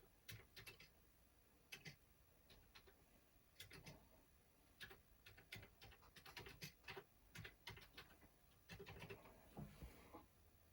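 Faint, irregular clicking of keys being typed on a Commodore 64 keyboard.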